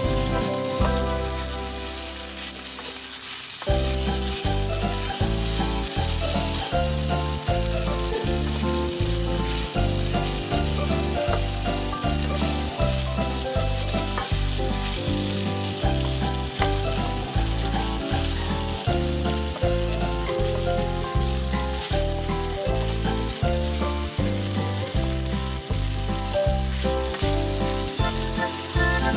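Pork slices sizzling in a hot nonstick frying pan, stirred and turned with a wooden spatula. Background music with a steady beat plays throughout, quieter for the first few seconds.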